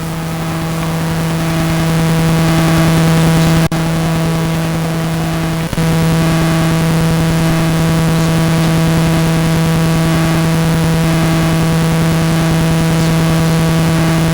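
A loud, steady electronic hum at one unchanging pitch, with overtones. It cuts out for an instant twice, about four and six seconds in.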